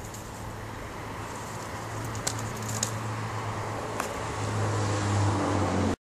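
Low, steady hum of a vehicle engine that grows louder in the last second or so, with a few sharp clicks about two and four seconds in.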